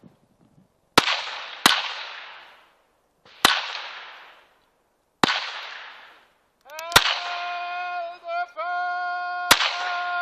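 Pistol shots at an outdoor range: six shots, two of them close together near the start, each followed by a rolling echo. From about seven seconds in, a steady pitched tone sounds for about three seconds with a brief break, then slides down in pitch as it ends.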